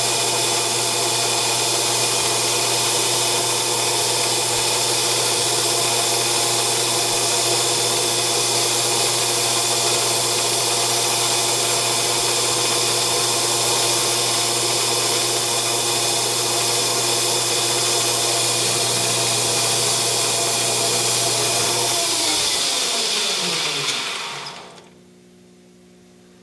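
Grizzly G0602 lathe turning aluminium bar stock dry: a steady spindle-and-cutting hum with a high whine. About 22 seconds in, the spindle is switched off by the program's M5 command and winds down, its pitch falling, until it stops.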